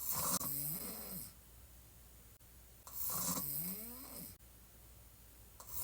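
A woman snoring on her back with her mouth open: two loud snores about three seconds apart, each a harsh noisy breath followed by a short tone that rises and falls, and a third starting near the end.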